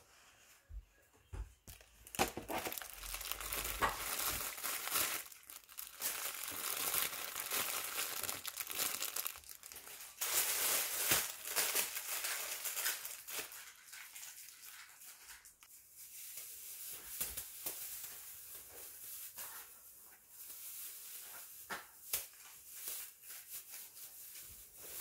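Plastic packaging crinkling and rustling as it is unwrapped and torn open by hand, louder through the first half and softer, more intermittent handling later.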